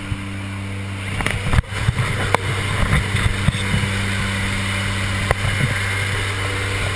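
Propeller aircraft engines droning steadily, heard from inside the cabin of a skydiving jump plane, with a few short knocks from gear and handling.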